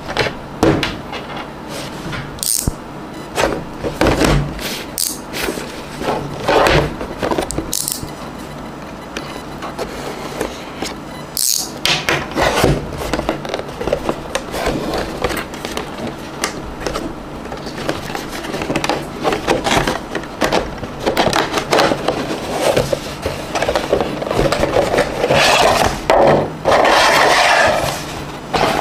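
Fingers tapping, scratching and rubbing the cardboard retail box of an AMD Ryzen 7 5700X processor, in irregular crisp taps and scrapes, with a longer stretch of rustling rubbing near the end.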